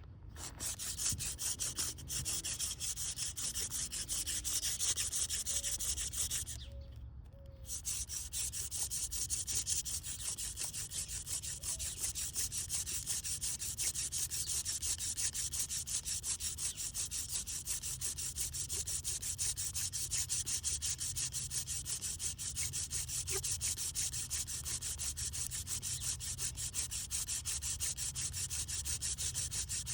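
Hand drill fire-making: a wooden spindle spun rapidly back and forth between the palms, grinding in the socket of a wooden hearth board with a steady rubbing hiss. There is a short break about seven seconds in, then the drilling runs on.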